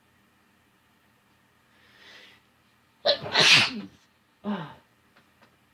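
A person sneezing once, loudly, about three seconds in, after a faint breath in. A short voiced "ah" follows.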